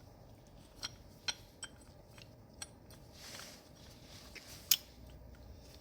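Brake pads being fitted into the front brake caliper of a 2021 BMW S1000RR: a handful of light metallic clicks and taps, the sharpest about three-quarters of the way through.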